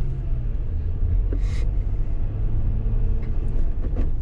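In-cabin sound of a 2018 Jeep Wrangler JL Rubicon with a 3.6-litre V6 and six-speed manual, moving slowly with the windows up. A steady low engine and road rumble mixes with the noise of its BFGoodrich All-Terrain tires. There is a brief hiss about a second and a half in, and a few light clicks near the end.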